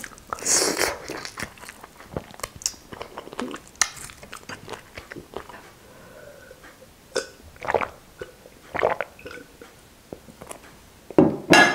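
Close-miked eating: a bite into a ripe strawberry about half a second in, then wet chewing and lip smacks. Later come swallowing and gulping sounds as orange soda is drunk from a glass.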